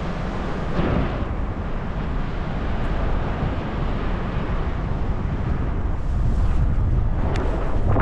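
Wind rushing over the camera microphone of a paraglider in flight: a steady low rumbling rush with short gusts about a second in and near the end, a little louder toward the end.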